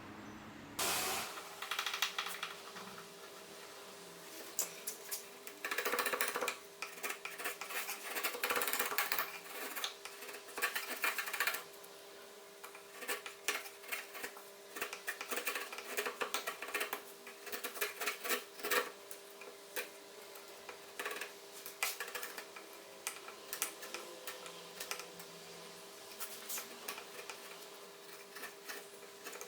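Irregular clicking and clattering of small hard objects being handled, in uneven clusters, over a faint steady hum.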